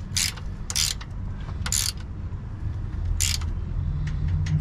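Ratcheting wrench clicking as a bolt is turned under the car, in four short bursts of ratchet clicks spaced unevenly.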